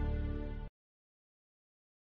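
Background music of sustained chords with a deep low end, cutting off abruptly less than a second in.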